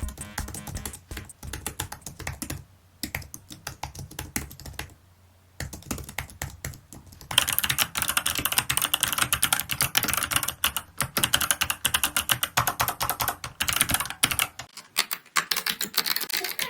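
COX CK700 mechanical keyboard with optical switches being typed on, a rapid clatter of key clicks. The typing pauses briefly twice early on, then runs faster and louder from about seven seconds in.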